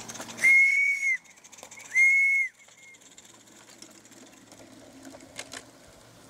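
Steam whistle on a Roundhouse 16mm-scale live-steam model of the Vale of Rheidol locomotive Llywelyn, giving two short high blasts about a second and a half apart and a faint brief toot just after.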